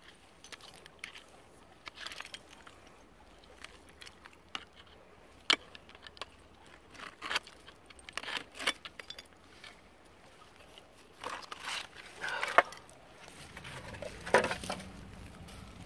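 Digging by hand and with a flat metal scraper in crunchy dump soil full of buried debris: irregular scrapes, crunches and sharp clinks, coming thicker near the end.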